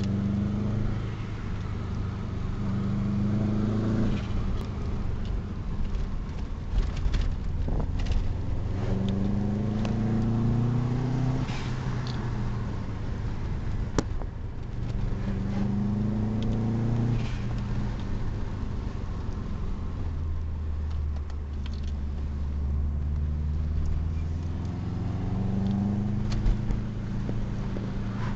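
Subaru Impreza WRX's turbocharged flat-four engine heard from inside the cabin while driving. The engine note climbs several times under acceleration and drops back at each gear change, with a few clicks and rustles from the camera being handled.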